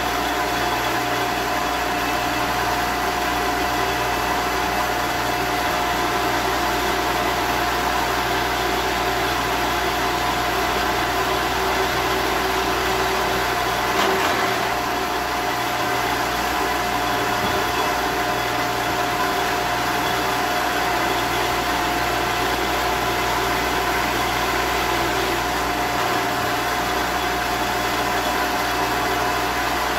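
1954 Shopsmith running steadily as a drill press with a constant whine, its Forstner bit boring into a wooden bass body blank.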